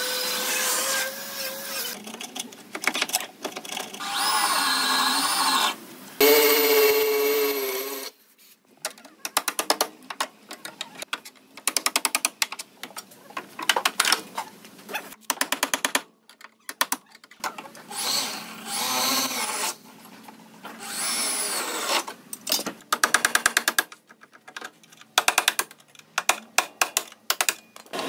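Workshop tool noise on car body metal in short, abruptly changing stretches: power-tool whining that bends up and down, alternating with runs of rapid clicking and rattling.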